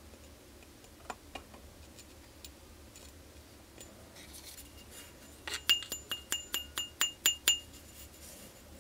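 A rusty steel pipe knocked about ten times in quick succession, each strike a short ringing metallic clink at the same pitch. A couple of faint handling clicks come before it.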